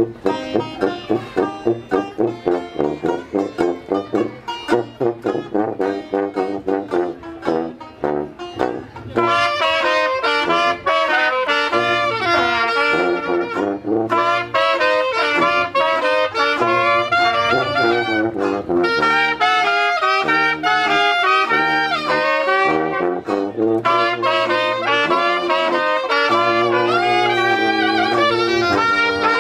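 Traditional jazz band playing: banjo strumming in a steady beat over sousaphone bass for the first nine seconds or so, then trumpet and saxophone come in and the full band plays on, louder.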